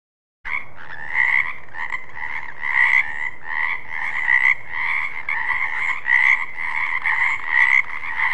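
Frogs croaking: a steady run of rasping calls, about two to three a second, starting suddenly about half a second in and cutting off abruptly at the end.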